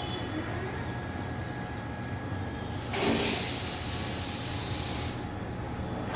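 Shower spraying water, switched on suddenly about three seconds in, giving a steady hiss.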